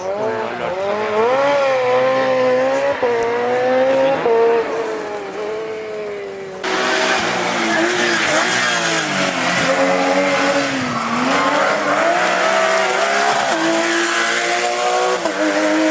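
Rally car engines revving hard, the pitch climbing and dropping through gear changes and lifts, with some tyre squeal. About seven seconds in, an abrupt cut switches to a louder pass by a Porsche 911 rally car's flat-six, with more road and tyre hiss.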